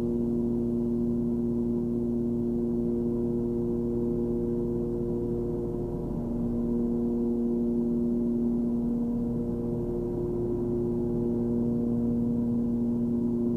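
Steady drone of a Cessna 340's twin piston engines and propellers in level cruise, a low hum made of several even tones, dipping slightly about six seconds in.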